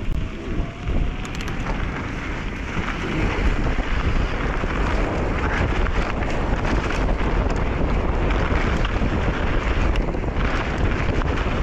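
Mountain bike setting off down a soft dirt trail: wind rushing over the chest-mounted microphone and tyres rolling, growing louder over the first few seconds as speed builds, with a few clicks and knocks at the start.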